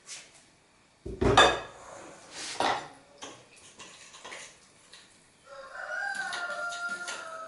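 A plastic cooking-oil jug is set down on the counter with a thump about a second in. A spoon then knocks in a glass bowl as cake batter is mixed. Near the end a rooster crows once, a long call.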